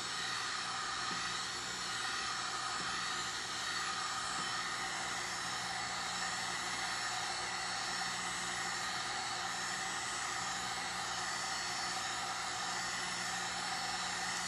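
Electric heat gun running steadily: a level blowing hiss with a low motor hum, warming the wet epoxy and acrylic paint on a tumbler.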